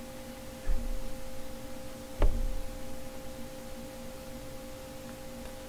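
A faint steady hum of a few pure tones, with a low thump just under a second in and a short sharp tap about two seconds in, from a hand pressing the unit button of a digital scale to switch it from ounces to grams.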